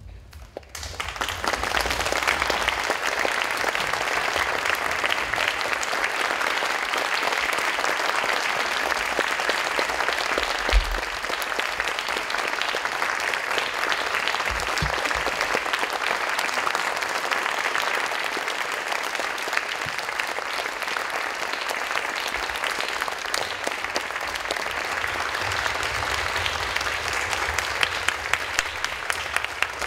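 Theatre audience applauding at a curtain call. The clapping starts suddenly about a second in and keeps up steadily without a break, with a low thud about eleven seconds in.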